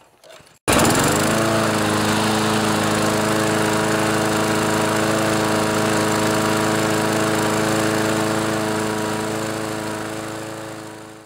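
Briggs & Stratton 675-series mower engine running at full throttle, its governor spring just tightened so it revs higher. It comes in abruptly about a second in, rises quickly in pitch, then holds a steady high speed and fades out near the end.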